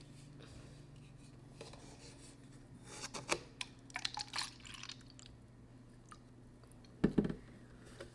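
A drink poured from a plastic bottle into a paper cup, with clicks of the bottle and cup being handled, over a steady low hum. A short, loud, dull sound comes about seven seconds in as the cup is lifted to drink.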